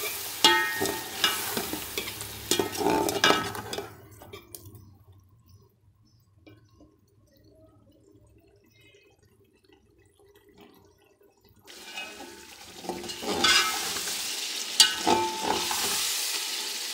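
A flat metal spatula scrapes and clinks against a metal pot while stirring kofta in masala and beaten yogurt, over a frying sizzle as the masala is fried down. It falls almost silent for several seconds in the middle, then the stirring and sizzling start again.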